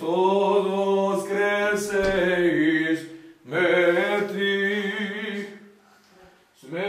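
Orthodox priest chanting a liturgical prayer alone, one male voice holding long, steady notes. Two long phrases with a short breath between them, then a brief pause near the end before the chant resumes.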